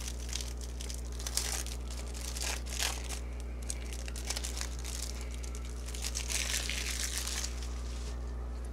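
Plastic wrapping on Yu-Gi-Oh trading cards crinkling and tearing as it is opened by hand. The crinkling is irregular and stops near the end.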